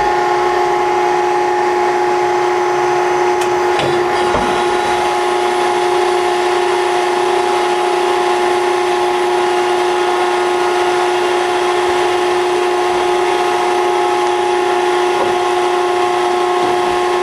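Maren Model 72 closed-end baler's hydraulic power unit, a 15 hp electric motor driving the pump, running with a steady whine as the ram strokes through an automatic cycle. A few faint knocks come about four seconds in.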